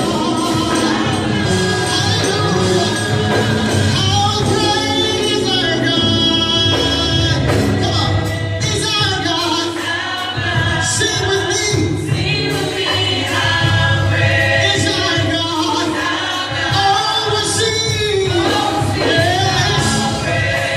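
Choir singing a gospel song with band accompaniment.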